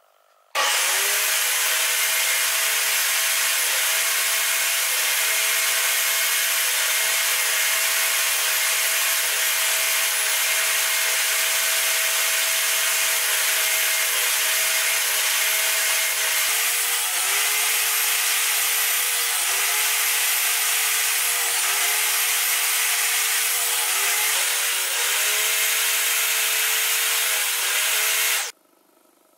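Portable table saw running steadily while its blade crosscuts pine on a crosscut sled; the motor's pitch dips briefly several times in the second half as the blade takes load in the wood.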